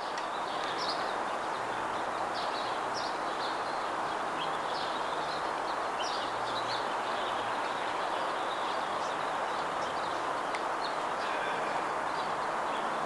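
Many short, high bird chirps over a steady outdoor hiss.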